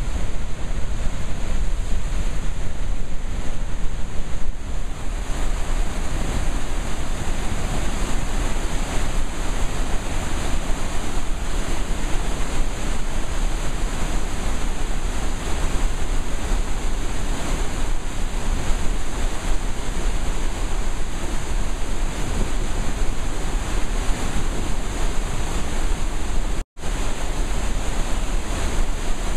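Steady rushing of a massive flood release of water jetting out of Oahe Dam's outlet tunnels into the stilling basin, with wind buffeting the microphone. The sound cuts out for a split second near the end.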